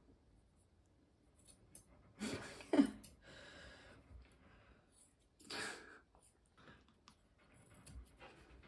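A small Pomeranian puppy making two short breathy huffs, about two seconds in and again about five and a half seconds in. The first carries a brief low grunt that drops in pitch.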